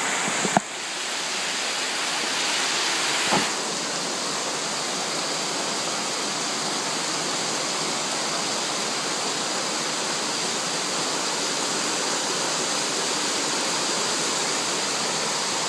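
Heavy rain pouring down in a steady downpour, with a couple of brief knocks, one just after the start and one about three and a half seconds in.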